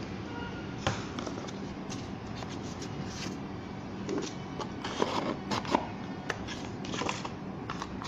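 Hands handling packaging and a small device: irregular rustles and light clicks, busiest in the second half, over a faint steady hum.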